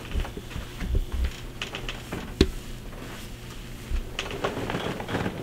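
Clothing and table padding rustling with small knocks as a patient lies on her side on a chiropractic table, and one sharp crack about two and a half seconds in.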